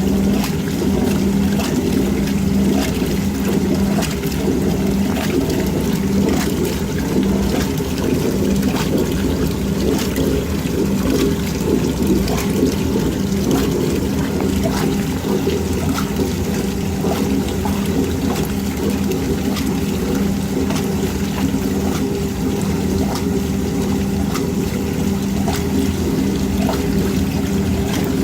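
1962 Norge washing machine running with a steady motor hum while water sloshes and splashes in the tub as it fills for the overflow rinse.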